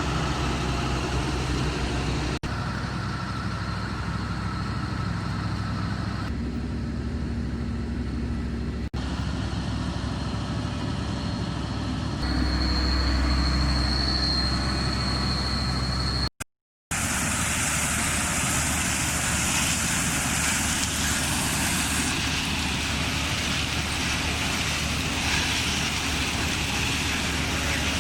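Combine harvester running steadily, a constant engine hum with machine noise over it, in short takes joined by abrupt cuts; after the last cut, past the middle, a broader, hissier machine noise takes over.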